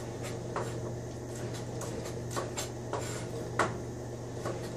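Chef's knife slicing strips of celery into julienne on a cutting board: irregular light knocks of the blade meeting the board, the sharpest a little past halfway.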